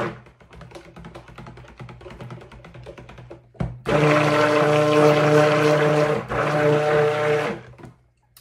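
Handheld stick blender in cold-process soap batter, pulse-blended: the motor stops, and for a few seconds there is soft knocking and sloshing as the blender head is stirred through the batter by hand. A click about three and a half seconds in, then the motor runs again with a steady hum for about four seconds and cuts off.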